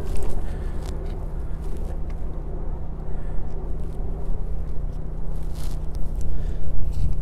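Outdoor low rumble of wind buffeting the microphone, uneven in strength, with a steady low hum underneath and a few faint clicks.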